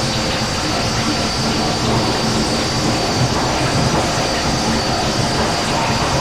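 Demo cassette recording of dense, steady rumbling noise, with a thin high tone held above it and no beat or melody.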